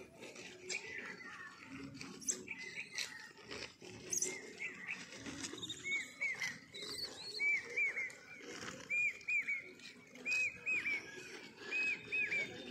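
Short, high, arched chirping calls in quick twos and threes, repeating every second or so from about halfway through, over rustling and scattered clicks, among a feeding troop of gray langurs.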